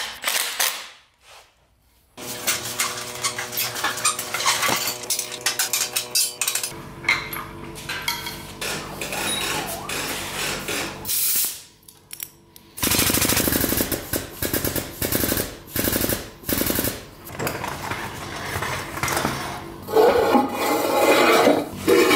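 Ratchet wrench clicking in fast runs, with clanks of steel tools and parts, as a lifting plate is bolted onto an LS V8 long block and an engine hoist is rigged.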